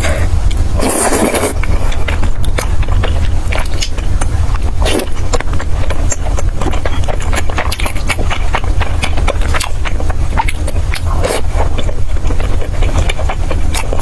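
Close-miked eating: irregular clicks, chewing and a slurp of wide noodles and potato noodles, the slurp about a second in, over a steady low rumble.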